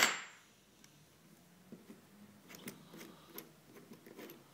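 Faint, scattered small clicks and taps of metal parts being turned and handled on the nose of a pneumatic rivet nut tool, opening on the tail of a louder metallic clink that dies away.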